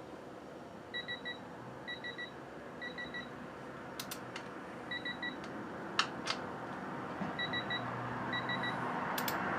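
Electronic beeping in quick sets of three, repeated roughly every second with gaps, from a digital torque wrench being held on a front-fork pinch bolt, with a few sharp clicks of the tool in between.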